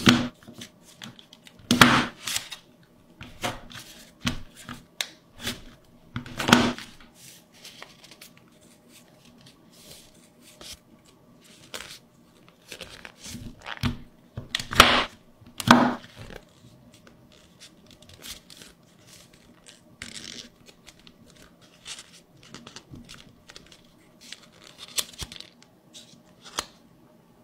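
Origami paper being folded and creased by hand into a sea turtle: irregular crisp crinkles and rustles of the paper. Sharper, louder creases come about two seconds in, about six and a half seconds in, and twice around fifteen to sixteen seconds.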